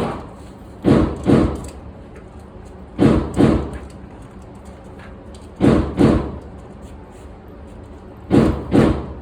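Pistol shots fired in pairs: four double shots, the two shots of each about half a second apart and the pairs about two and a half seconds apart, each shot ringing briefly in the range.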